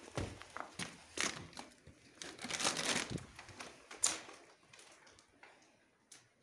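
Crumbling plaster and brick debris crunching and scraping in irregular bursts, with scattered sharp knocks. The loudest stretch comes about two and a half to three seconds in, and a sharp crack comes at about four seconds.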